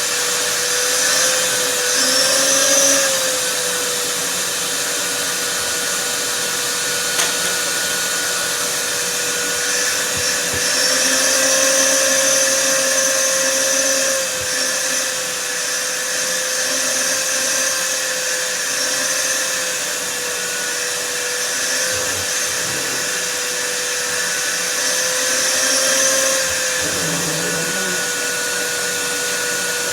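Vacuum cleaner running steadily: a constant motor whine over a rushing hiss of air, its pitch and loudness shifting slightly now and then as the airflow changes.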